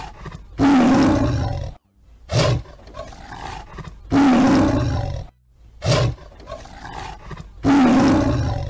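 Cartoon dinosaur roar sound effect, looped: a short sharp cry followed by a longer, loud roar, repeating about every three and a half seconds.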